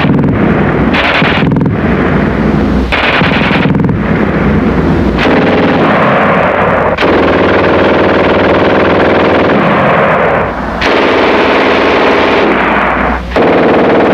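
German MG-42 machine gun firing long bursts at a very high rate of fire, so the shots run together into a continuous ripping sound. The bursts are separated by several short pauses.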